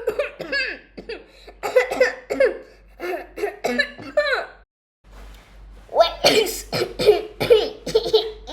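A voice making a run of voiced, cartoon-style coughs with laughter among them; they stop briefly about four and a half seconds in, then come back faster and denser near the end.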